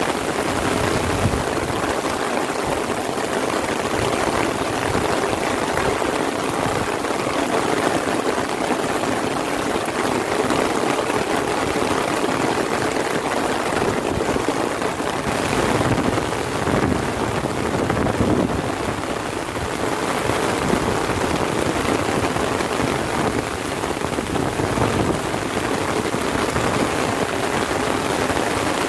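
Heavy rain falling steadily, a dense even hiss of drops on the surrounding surfaces.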